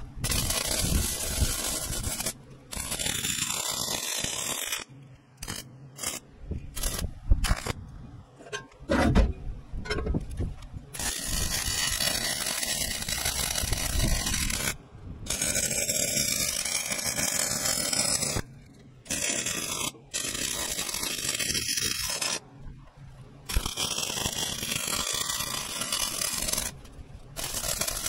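Electric welding arc laying weld beads: a steady hiss in runs of a few seconds, each starting and stopping abruptly, with shorter irregular bursts and knocks in the first ten seconds or so.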